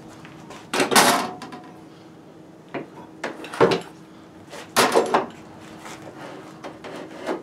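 Walnut stock blank and tools being handled on a wooden workbench: a few knocks and clunks, the loudest about one, three and a half and five seconds in.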